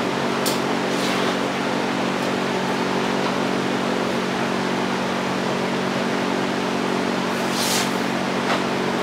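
Steady mechanical hum of a running machine, with a few light clicks.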